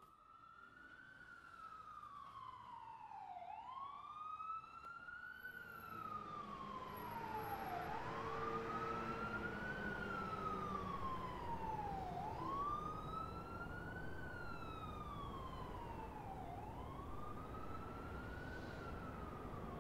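Emergency vehicle siren wailing, its pitch sweeping up and then slowly down about every four seconds, fading in at the start. A low rumble grows in beneath it after a few seconds.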